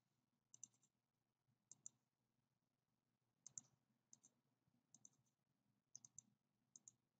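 Faint computer mouse clicks, about eight of them spread over several seconds, several in quick pairs, as items are selected on a point-of-sale order screen; otherwise near silence.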